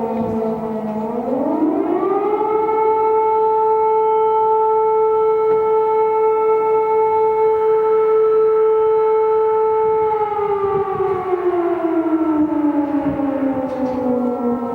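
Civil defence siren wailing: its pitch rises over a second or so, holds steady and high for about eight seconds, then slides slowly back down near the end.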